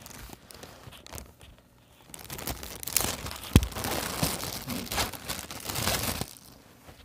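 Clear plastic bag crinkling and rustling as a headset microphone is pulled out of it, with a sharp knock about three and a half seconds in.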